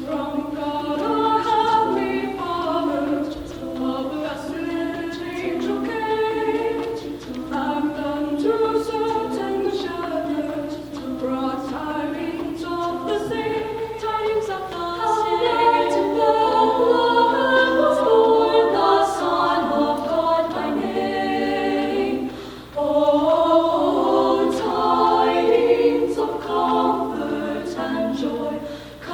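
High school madrigal choir singing a cappella in several parts, with a short break between phrases about three-quarters of the way through.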